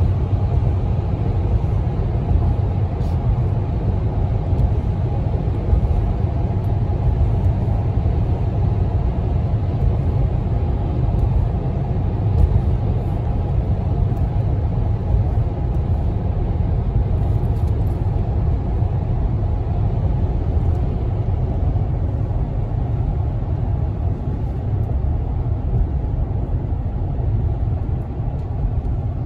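Steady low road and engine rumble heard from inside the cabin of a vehicle driving along a highway.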